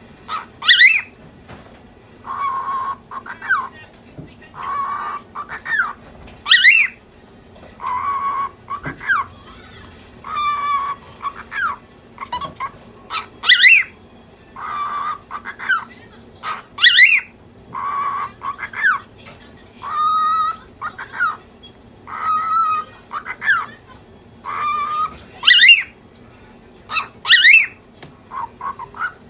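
Lutino cockatiel chattering in quick, speech-like mimicked phrases, broken every few seconds by short, loud, sharp calls. She is irritated and chattering angrily.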